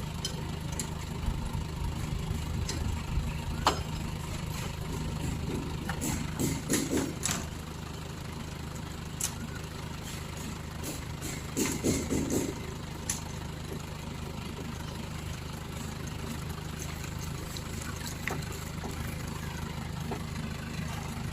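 Lorry engine running steadily at idle, with a few sharp knocks and clanks now and then, bunched once about six seconds in and again about twelve seconds in.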